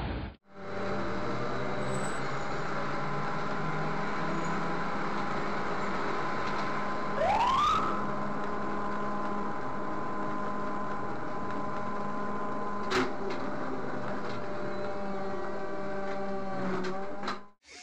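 Steady drone of a moving car heard from inside, with a single rising whine about seven seconds in and a sharp click near thirteen seconds.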